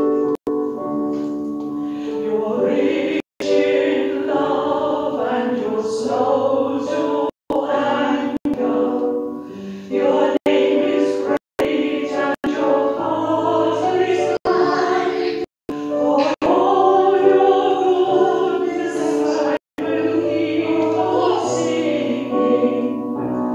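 A hymn sung by a choir with accompaniment, in long held notes. The sound cuts out completely for a split second about six times.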